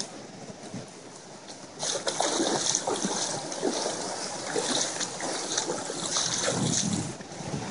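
Hands paddling and splashing in shallow creek water beside an inflatable float. The splashing starts about two seconds in and stops shortly before the end, over the steady rush of the rocky creek.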